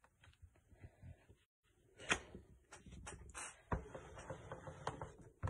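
Scattered light clicks and taps with some rustling as craft supplies are handled on a desk. It is sparse at first and busier from about two seconds in, with a few sharper knocks.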